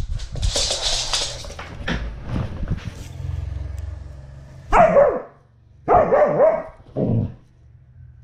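Husky barking three times, about a second apart: short pitched calls whose pitch bends. Before them, rustling and scuffing as she moves.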